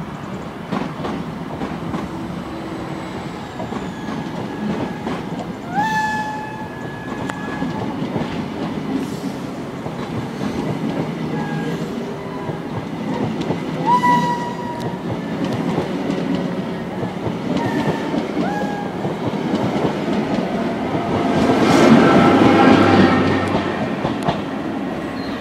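Greater Anglia passenger coaches rolling past close by, a steady rumble and clatter of wheels on rail with a few short wheel squeals. It grows louder near the end, with held tones, as a Class 90 electric locomotive comes close.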